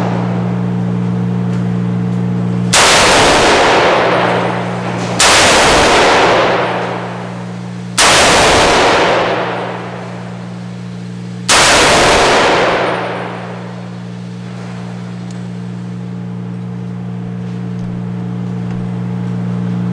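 Four single shots from a 10.5-inch .300 Blackout AR pistol, fired a few seconds apart. Each is a sharp report with a long echoing tail, over a steady low hum.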